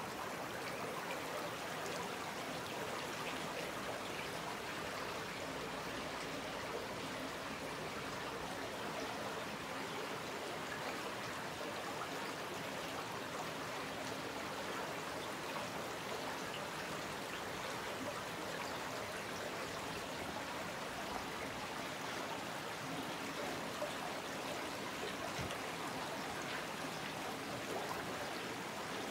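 Shallow mountain creek babbling steadily over gravel and stones.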